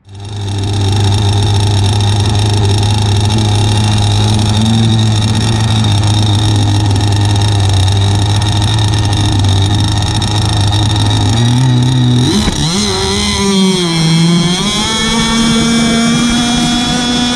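RC hydroplane's Zenoah two-stroke gas engine, heard close from the onboard camera, running at a steady idle, then revving up about twelve seconds in, its pitch swinging up and down as the boat gets under way, and finally holding a steady, much higher note at speed.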